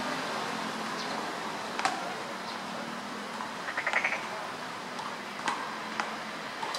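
Short sharp bird chirps, with a brief rapid trill about four seconds in, over a steady outdoor background hiss.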